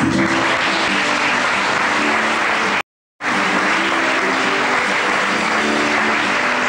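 An audience applauding while a live band plays. The sound drops out completely for a moment about three seconds in.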